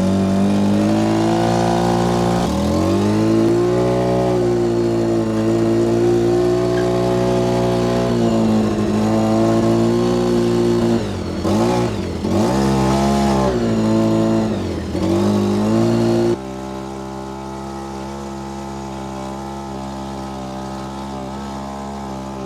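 Polaris RZR 800's twin-cylinder engine running while pulling a trailer, its pitch rising and falling with the throttle and dipping several times past the middle. About two-thirds of the way through it drops suddenly to a quieter, steady engine note.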